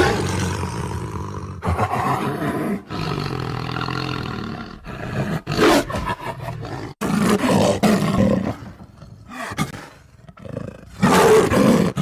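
Tiger roaring and growling in a string of separate calls, with a louder roar near the end.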